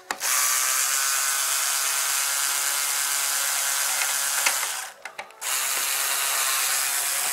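Cordless electric ratchet wrench running in two long bursts, about four and a half seconds and then two and a half, with a short break between, backing out a deck-cover bolt on an electric kick scooter.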